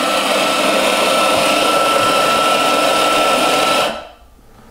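Profitec Pro T64 flat-burr coffee grinder running, grinding a timed double dose of espresso into the portafilter: a steady grinding noise with a constant whine. The motor cuts off suddenly about four seconds in as the timed dose ends.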